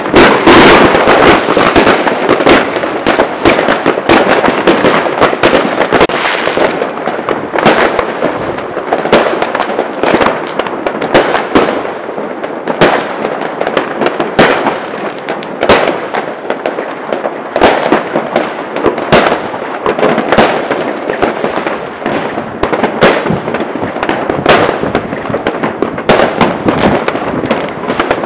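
Fireworks going off in a dense barrage: a continuous crackle of many sharp bangs and pops from aerial shells and firecrackers. It is thickest and loudest in the first few seconds, then goes on as a rapid run of separate bangs.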